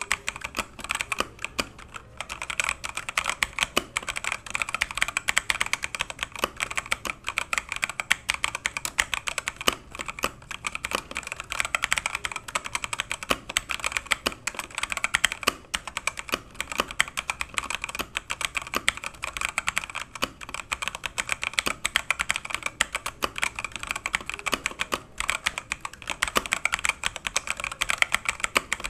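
E-Yooso Z94 wired mechanical keyboard being typed on quickly and steadily, a dense stream of key clacks several strokes a second, with brief lulls about two seconds in and near the end.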